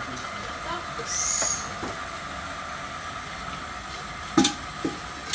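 Electric jet water pump running with a steady whine, feeding a hose in use. There is a short hiss about a second in and two sharp knocks near the end.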